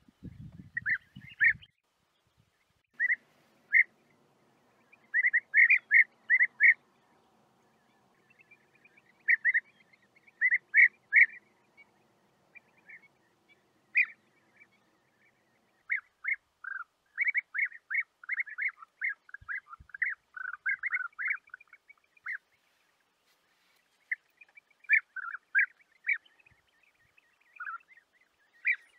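European bee-eater calls: short, rolling notes given in quick clusters of two to six, with pauses between clusters. There is a brief low rumble at the very start.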